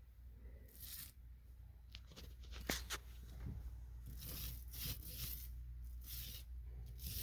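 Repeated rasping strokes of paint being applied to a ceiling, each stroke under a second and coming at an irregular pace, with a sharp click about two and a half seconds in.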